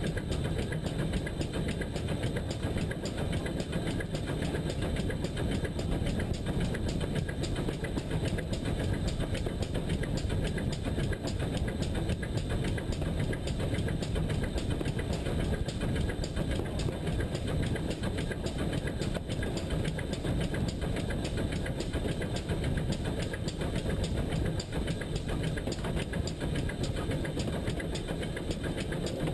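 GWR pannier tank steam locomotive running along the line, heard from a camera on its front: a steady low rumble of the wheels on the rails and the running gear, with no break.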